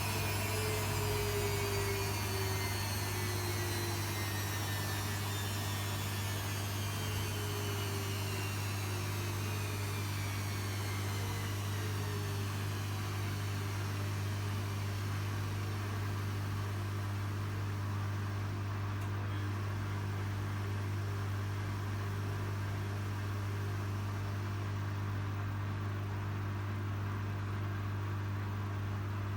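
Arçelik 3650 SJ washing machine running with a steady low hum, its motor whine falling in pitch over the first ten seconds or so as the drum's spin slows, near the end of the wash programme.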